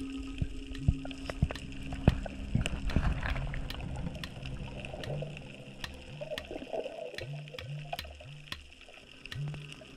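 Underwater sound picked up by an action camera in its housing while swimming over a seagrass bed: water sloshing and gurgling, with scattered sharp clicks throughout. Faint background music with a low bass line runs underneath.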